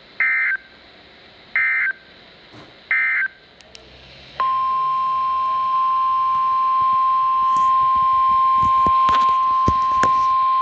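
Three short, identical Emergency Alert System digital data bursts, the end-of-message code closing the previous warning, followed about a second later by the steady 1050 Hz NOAA Weather Radio warning alarm tone, which comes in loudly and holds one pitch. A few brief crackles of static come through over the tone near the end.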